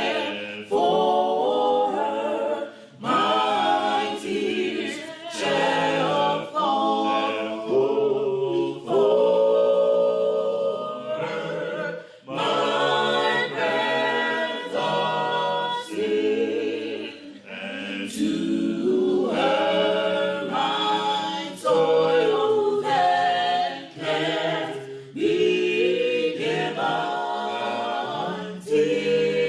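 A cappella gospel choir singing a hymn in harmony, unaccompanied, in phrases of a few seconds each with short breaks between them.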